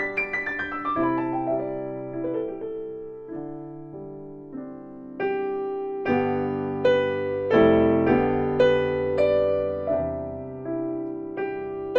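Solo acoustic piano playing a slow jazz ballad: a falling run of notes that dies away softly, then from about five seconds in, fuller chords struck one after another, louder.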